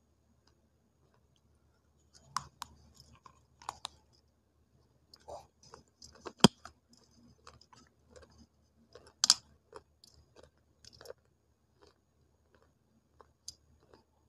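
Dry multani mitti (Fuller's earth clay) sticks being bitten and chewed up close: irregular sharp crunches and clicks with softer crackling between them. The loudest snap comes about six seconds in and another strong one about nine seconds in.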